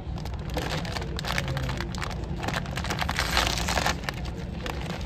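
Thin plastic packaging of a frozen ready meal crinkling and rustling as it is torn open by hand, loudest about three to four seconds in. Under it runs the ship's steady low engine drone.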